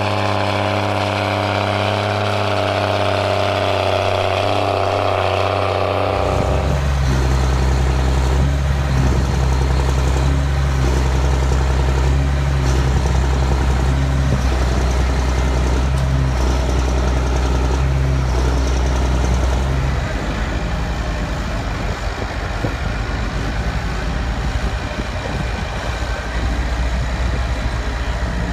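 Large Case IH farm tractor diesel engines. For the first six seconds the engine runs hard with its note falling slightly; then comes a steady, deep idle, and about twenty seconds in a rougher engine sound as a tractor drives.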